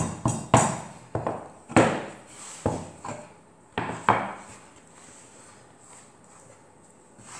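Wooden rolling pin pressed and rolled over the rim of a metal tart tin and wooden board to cut off excess dough: a quick series of about nine knocks and scrapes over the first four seconds or so.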